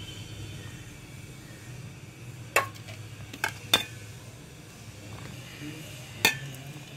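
Chopped vegetables tipped from a steel plate into a steel bowl of grated paneer, with four sharp metal clinks of plate or spoon against the bowl, two of them close together in the middle. A low steady hum runs underneath.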